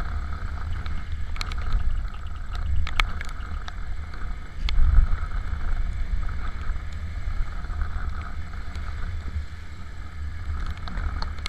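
Wind rumbling on the microphone of a Honda Supra GTR 150 motorcycle riding in the rain, with the riding noise swelling about five seconds in. Scattered sharp ticks of raindrops hit the camera.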